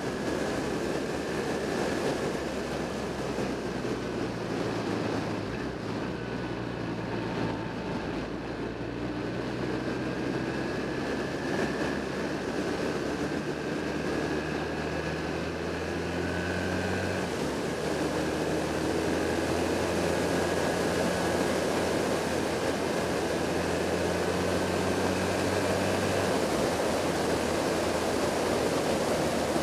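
Motorcycle engine running steadily under heavy wind rush over the action camera's microphone. The engine note shifts pitch a few times, stepping at about the middle and again near the end.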